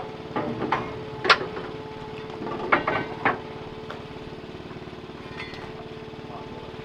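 A crab boat's engine running steadily, with a run of sharp knocks and clatters in the first half as gear is worked on deck, the loudest about a second in.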